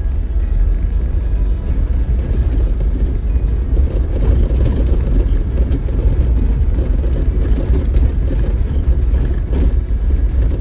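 Off-road vehicle driving along a dirt trail: a steady low rumble of engine and tyres, with a few brief knocks and rattles from the rough ground.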